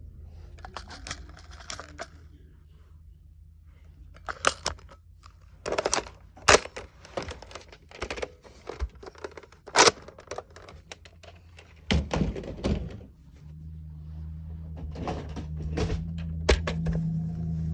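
Plastic clicks and knocks of Nerf toy blasters being handled and loaded, with two sharp knocks in the middle. A steady low hum comes in about two-thirds of the way through.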